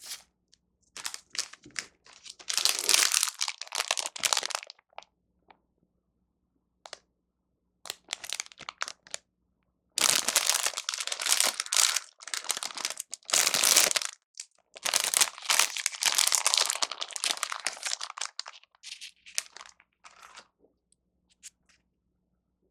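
Plastic food wrapping crinkling and tearing as packaged convenience-store food is handled and opened, in irregular bursts of rustling with short pauses between.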